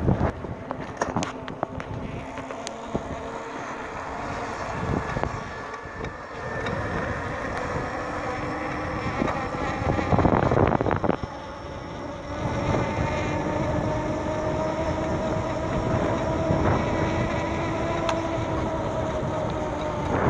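Rear-wheel hub motor of a DIY electric bike whining steadily under power as the bike rides along, its pitch creeping up slightly in the second half. Wind gusts hit the microphone at the start and again about ten seconds in.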